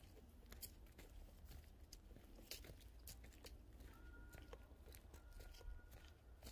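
Faint footsteps crunching and crackling on dry leaves and twigs of a forest floor, in irregular steps. A faint thin steady tone comes in about four seconds in and stops near the end.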